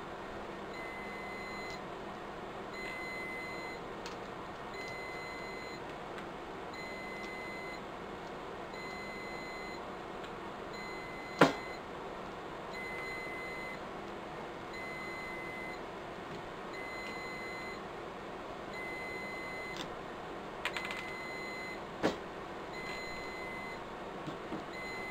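Riello DVD 2200 UPS alarm beeping: short high beeps repeating about once a second over a steady hum, the warning that has been sounding for its failing batteries. A sharp knock about eleven seconds in and a lighter one near the end.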